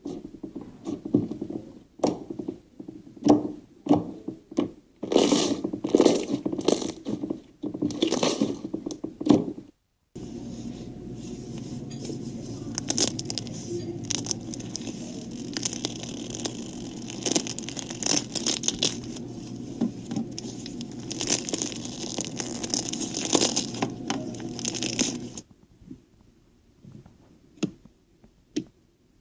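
Slime being pressed and stretched by hand, giving irregular crackling pops and squelches. After a cut about ten seconds in, a denser, steadier crackling runs until about twenty-five seconds, followed only by faint clicks.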